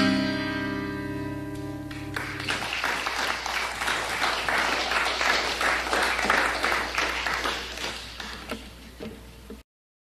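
Final strummed acoustic guitar chord ringing out, then audience applause from about two seconds in, fading and cutting off suddenly near the end.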